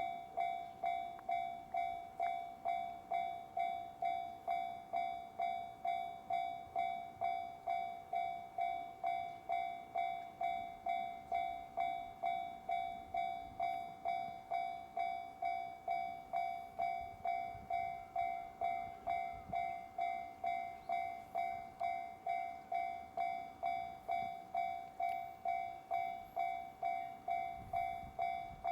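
Japanese railway level crossing warning bell ringing steadily, about one and a half to two strikes a second, each strike dying away before the next: the crossing is active, warning that a train is coming.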